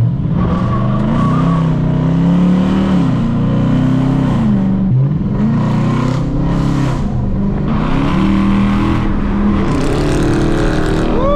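Car engines revving and accelerating hard, with the pitch climbing and dropping back several times as the cars rev and change gear.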